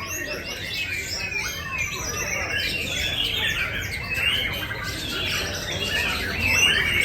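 Many songbirds chirping and singing at once, a dense tangle of overlapping short calls and trills.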